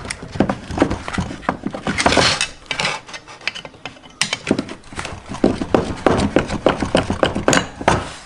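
Metal casting mold being handled and opened by a gloved hand: a run of sharp metallic clicks and knocks as the mold blocks are set down, shifted and pulled apart, with a short scraping rush about two seconds in.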